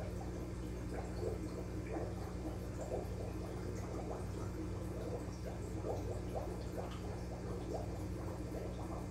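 Aquarium water bubbling and trickling: many small irregular blips over a steady low hum.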